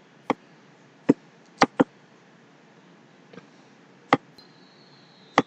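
Computer mouse clicking: about six short, sharp single clicks at irregular spacing.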